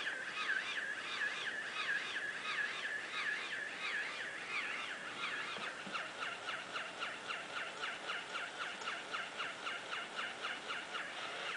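Battery-operated walking plush pig toy sounding its electronic oink: a rapid, even string of short high chirps, about three a second.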